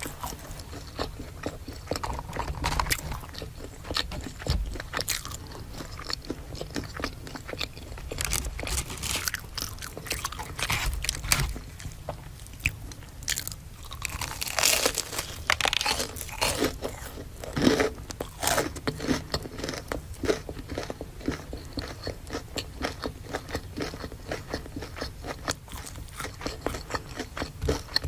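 Close-miked eating of crispy fried food: repeated bites and crunchy chewing, with a denser, louder stretch of crunching past the middle.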